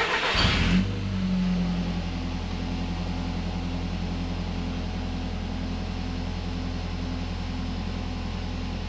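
Audi TT mk1's 1.8T turbocharged four-cylinder engine catches and, about a second in, settles into a steady idle, running on its newly fitted uprated fuel pump.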